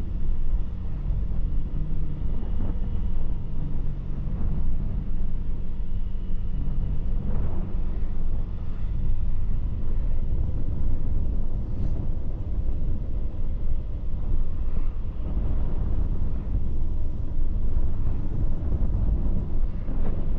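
A moving road vehicle running steadily with a deep rumble, its engine holding a fairly even pitch, with wind buffeting the camera microphone.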